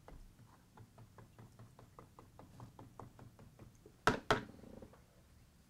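Oil-paint brush being rinsed, worked against a rinse container in a quick run of light ticks about five a second, then two sharp knocks close together about four seconds in as the brush is rapped against the container.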